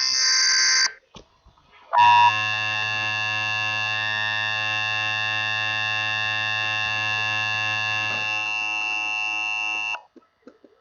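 Emergency Alert System broadcast tones: a harsh, noisy data burst lasting about a second, the last of a repeated series. Then, from about two seconds in, a steady buzzing alert tone with many overtones that cuts off suddenly near the end.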